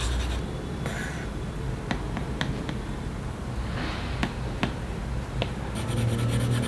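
Stylus tip tapping and stroking on an iPad Pro's glass screen while drawing: a scatter of separate clicks, with soft rubbing strokes between them.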